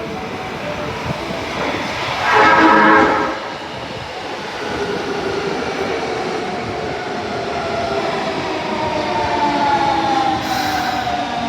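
Tanimachi Line subway car 22618 running: a short, loud pitched tone lasting about a second comes a little over two seconds in, then the train runs on with a motor whine that slowly falls in pitch as it grows louder.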